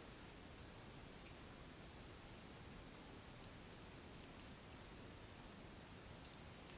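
Faint, sharp clicks of metal knitting needles and a tapestry needle knocking together while a sock toe is grafted with Kitchener stitch: one about a second in, a quick cluster of several around four seconds in, and one more near the end, over quiet room hiss.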